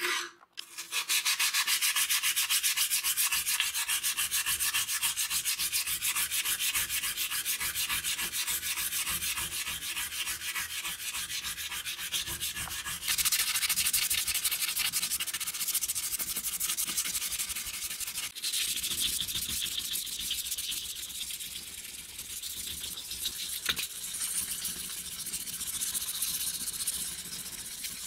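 Abrasive paper rubbed by hand over steel pliers in fast, continuous back-and-forth strokes: a steady scraping that sanding rust and pitting off the metal makes.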